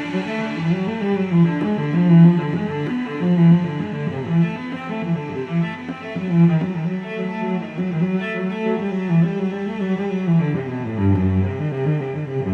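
Background music: a cello-like bowed string melody over a low bass line, with notes changing about every half second.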